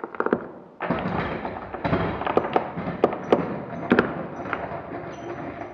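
Rusty anchor chain hauled by hand up out of a boat's chain locker: a quick rattle of links, then a few seconds of dense clattering and clanking with several sharp metallic knocks.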